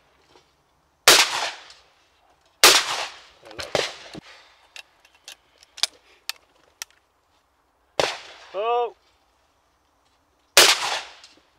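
Side-by-side hammer shotgun fired twice, about a second and a half apart, followed by a run of sharp metallic clicks as the gun is opened, reloaded and its hammers cocked. About eight seconds in there is a sharp crack and a short shouted call, and another shot comes near the end.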